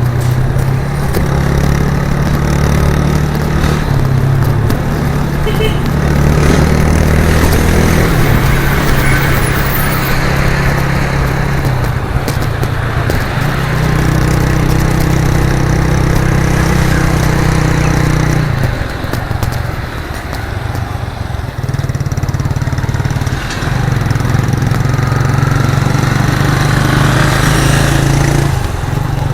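1998 Suzuki GN125's single-cylinder four-stroke engine running through its exhaust on the move, with engine speed shifting up and down in steps. It eases off about twenty seconds in, then pulls again.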